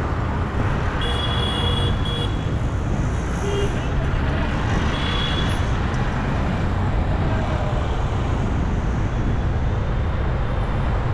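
Steady city street traffic heard from a moving vehicle, with a constant low rumble of engines and tyres. Short horn toots sound about a second in and again around five seconds in.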